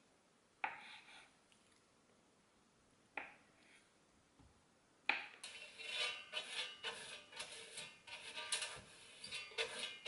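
A kitchen knife knocking down onto a wooden cutting board twice while slicing cooked sweet potato, then from about five seconds a basting brush scrubbing quickly back and forth against the metal air fryer basket in a dense run of scraping strokes.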